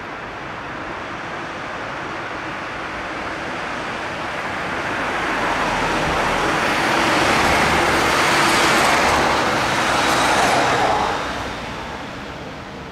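A column of Mercedes police vans and police cars driving past on a city street. The engine and tyre noise builds as they come close, is loudest about two-thirds of the way in, then fades.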